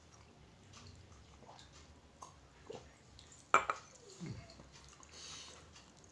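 Quiet eating sounds from a person chewing food out of a styrofoam box, with one sharp click about halfway through, followed by a short falling sound.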